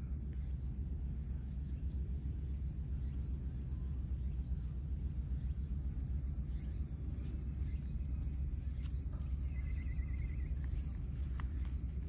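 Steady outdoor background noise: a constant low rumble with a thin, even high-pitched hiss over it. About ten seconds in comes a brief, quick trill.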